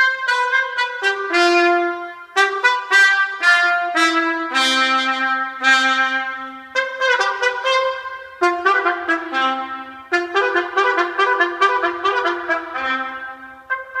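Trumpet fanfare reproduced over hi-fi loudspeakers: a run of loud, bright notes, each with a sharp attack and ringing into the next. The first half has longer held notes, and from about halfway the notes come quicker and shorter.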